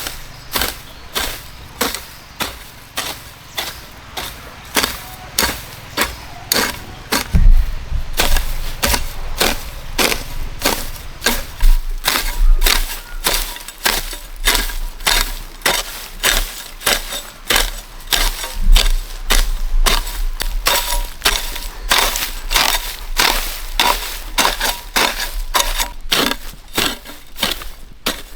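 Steady, repeated sharp chopping strikes, about two a second, of a blade hacking at bamboo.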